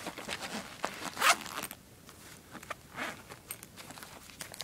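Zipper on a fabric zippered pouch being pulled open in several short pulls, the loudest about a second in.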